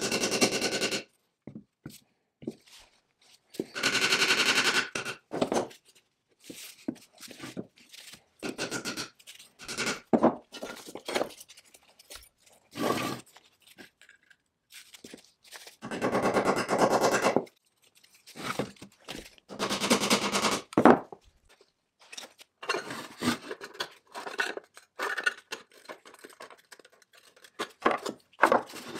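Hand-tool work on metal parts: dense bursts of rapid clicking and scraping, each a second or so long, at the start, around four seconds in and around sixteen seconds in, with shorter knocks and scrapes between.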